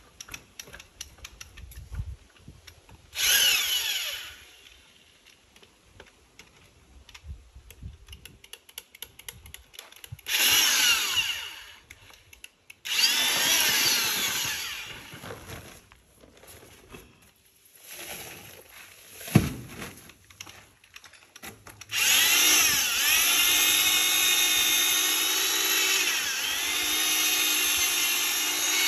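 Corded drill with a paddle mixer stirring a bucket of tiling mortar, its motor whine wavering in pitch as the paddle loads. It runs in three short spurts, with one sharp knock between them, then runs steadily for the last several seconds.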